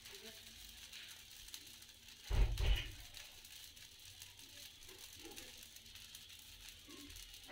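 Faint steady sizzle of a jaggery-batter pancake frying in a nonstick pan, with one low thump and brief rattle a little over two seconds in.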